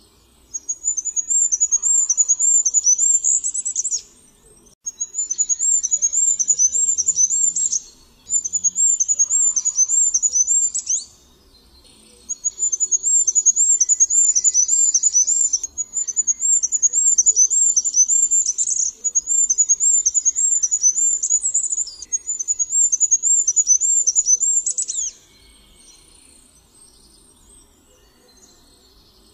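Goldcrest singing: several phrases of rapid, very high-pitched repeated notes, each phrase several seconds long with brief pauses between, falling quiet near the end.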